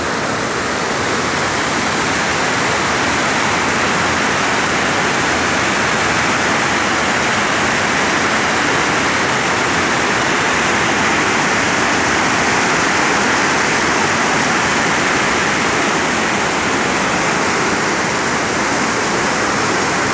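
River water spilling over a concrete dam spillway and churning in the whitewater below: a loud, steady rush.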